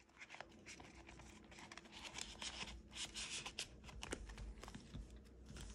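Paper envelopes and cards rustling and shuffling in the hands, with faint irregular ticks and rubs as they are sorted into a binder.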